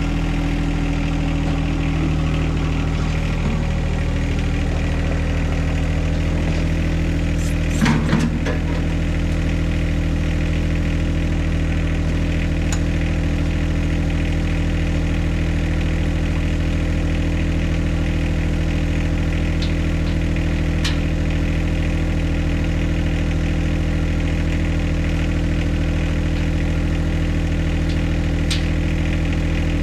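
John Deere 2025R compact tractor's three-cylinder diesel engine idling steadily, with one short loud clank about eight seconds in and a few faint sharp clicks later.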